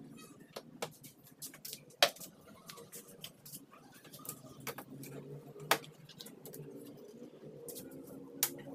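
Irregular clicks and knocks of tools and parts while a car's power window mechanism is being taken apart, the sharpest about two seconds in and again near six seconds.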